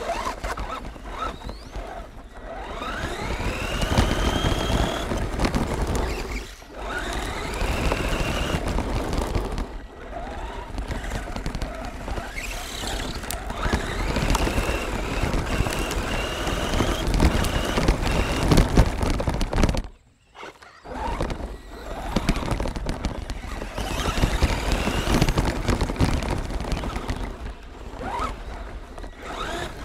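Onboard sound of a Redcat Volcano RC truck driving over grass and gravel: the motor's whine rises in pitch again and again as it accelerates, over a loud, rough rumble from the drivetrain and the ground. The sound cuts out briefly about twenty seconds in.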